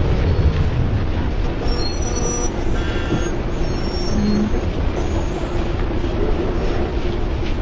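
Dense city traffic: a steady rumble of passing vehicles, with a few brief high tones about two and three seconds in.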